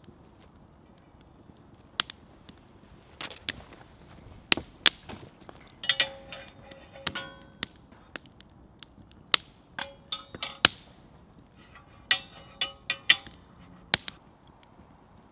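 Metal clinking and rattling in three short spells as a kettle is hung and shifted on the hook of an iron campfire tripod, the ringing notes of metal on metal. Sharp single pops from the wood fire come in between.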